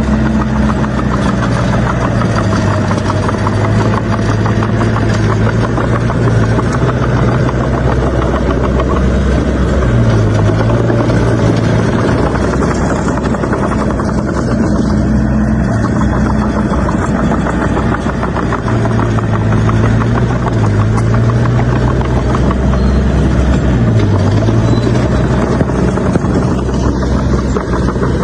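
Bulldozer's diesel engine running hard and steadily, its note sagging and recovering several times as the load changes.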